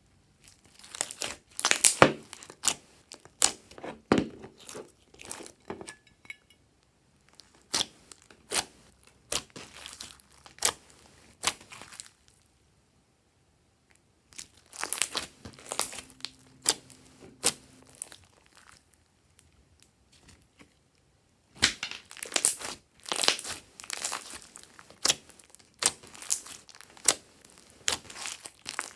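Glossy slime being stretched and squished by hand: sharp, sticky clicks and crackles in clusters, broken by two pauses of a few seconds.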